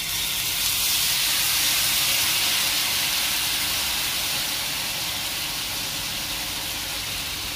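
Thin dosa batter sizzling on a hot, oiled non-stick tawa. The hiss starts suddenly as the batter is poured and eases off slowly while the batter spreads and sets into a lacy, holey dosa.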